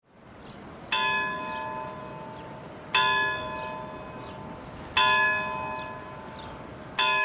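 A single bell struck four times at an even pace, about two seconds apart, each stroke at the same pitch, ringing on and fading before the next.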